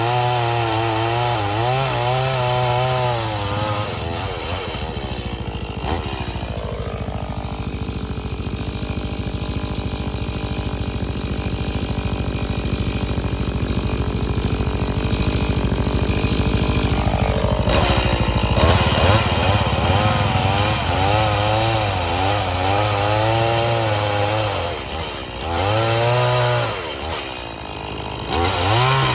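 Stihl MS180 two-stroke chainsaw running. Its engine note wavers up and down at first, then settles into a lower, steadier note for about fourteen seconds as the chain bores into a log. Near the end it revs up and eases off again several times.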